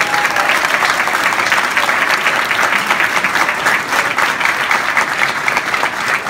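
Audience applauding, with hands clapping close to the microphone.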